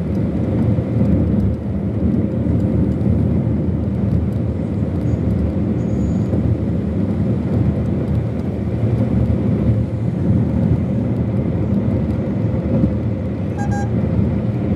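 Steady road and engine rumble heard from inside a moving car in traffic, with a brief beep near the end.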